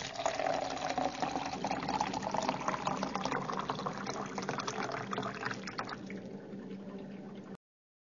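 Water poured from a jug into a glass, a steady splashing pour that thins out near the end and then cuts off abruptly.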